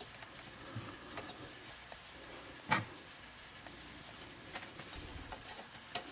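Solder melting into twisted copper wire under a soldering iron, the flux sizzling faintly as it smokes off. A single sharp click about two and a half seconds in.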